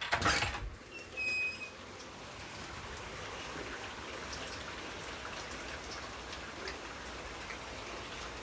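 Weather radio receiver hiss after the broadcast voice stops: a brief burst of noise, a short high beep about a second in, then steady static with faint crackles.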